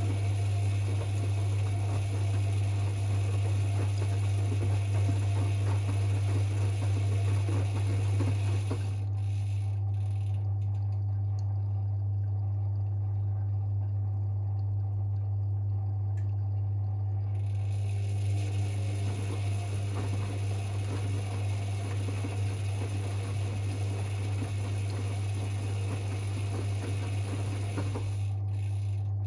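Privileg 5020 front-loading washing machine in its Easy-Care 40 °C wash: the motor turns the drum with water and laundry sloshing, stops about nine seconds in for the pause between turns, and starts again about eighteen seconds in, under a steady low hum. The motor's sound carries its years of laundry service, as the owner says.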